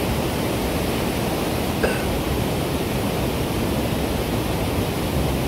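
Steady rushing outdoor noise without a clear tone, heaviest in the low end, with a faint short chirp about two seconds in.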